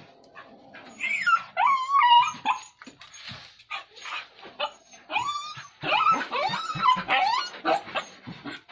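Dogs whining and yelping in short, high, wavering cries, one after another, starting about a second in.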